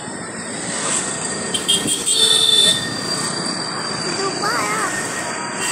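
Lucknow Metro train running on the elevated viaduct overhead, over a steady rush of street traffic heard from a moving two-wheeler. A brief high whine comes a little over two seconds in.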